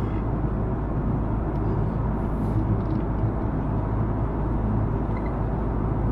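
Steady low cabin roar of an Airbus A330-343 in flight, heard from inside the cabin behind the wing: the drone of its Rolls-Royce Trent 700 turbofan engines mixed with the rush of air past the fuselage.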